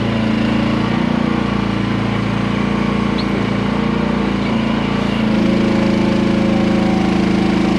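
Small petrol engine of a QH13R micro mini excavator running steadily; about five seconds in its note changes and grows slightly louder.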